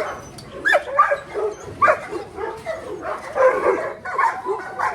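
American bandogge mastiffs barking and yipping in repeated bursts, with short rising yelps and whines among the barks.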